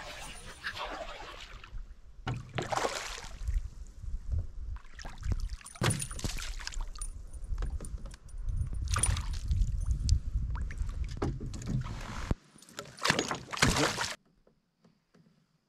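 A canoe being paddled: irregular swishing paddle strokes in the water over a low rumble, which drops away near the end.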